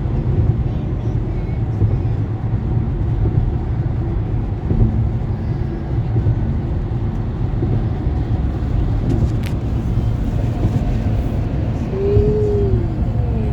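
Car driving, heard from inside the cabin: a steady low rumble of engine and tyre road noise. Near the end there is a short squeak that rises and then falls in pitch.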